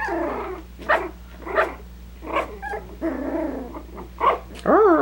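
Three-week-old Coton de Tulear puppies play-fighting, with a string of short high yips and low growly grumbles. A long wavering howl starts near the end.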